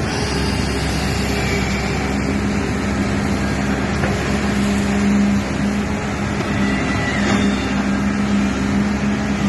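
Excavator's diesel engine running steadily under hydraulic load, with a low hum that drops out briefly a few times.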